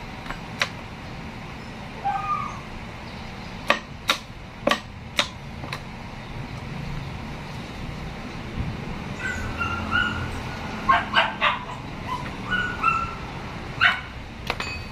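Sharp metallic clinks of steel gears and shafts from a manual transmission being handled, in a quick run about four seconds in and again around eleven and fourteen seconds. Between them come short high yips from a dog.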